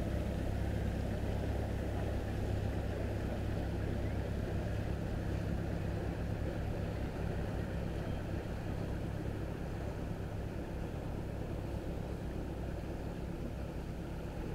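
Engine of a large passenger riverboat passing on the river: a steady low drone that fades gradually as the boat moves away.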